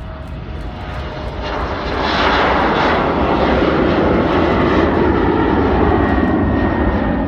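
Finnair Embraer regional jet passing overhead, its twin turbofan engines swelling to a loud rushing sound about two seconds in, with a high whine sweeping down in pitch, then staying loud.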